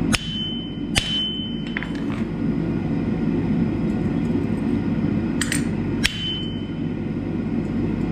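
Hammer strikes on a small chisel working a hot steel leaf on the anvil: four sharp metallic blows in two pairs, each leaving a brief high ring, over a steady low rumble.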